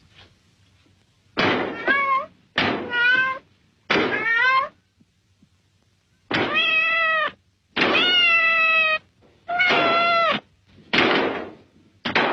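A cat meowing loudly and repeatedly: about seven drawn-out meows, with a longer pause partway through, several dropping in pitch at the end.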